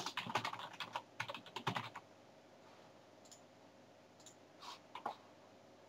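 Typing on a computer keyboard: a quick run of keystrokes for about two seconds, then a few isolated clicks.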